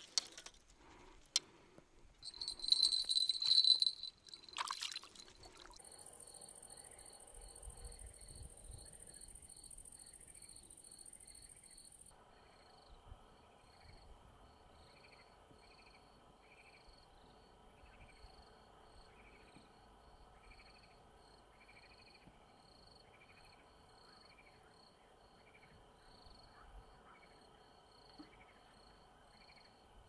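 Crickets chirping in a steady, regular rhythm, with a continuous high insect buzz over them for the first several seconds. Before that, near the start, there are a few sharp clicks and a brief loud burst of noise.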